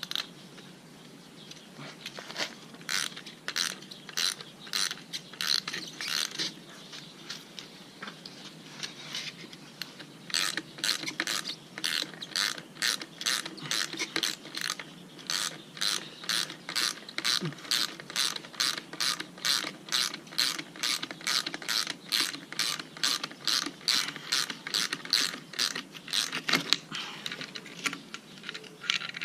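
Hand ratchet wrench clicking at about three clicks a second as a strut's top nut is tightened down over a new lowering spring. A short run of clicks, a pause of a few seconds, then a long steady run.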